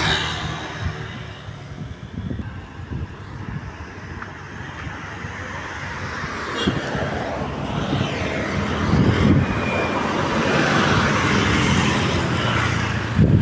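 Bus engine running with road and traffic noise, growing louder about two-thirds of the way through as it draws near. No telolet horn melody stands out.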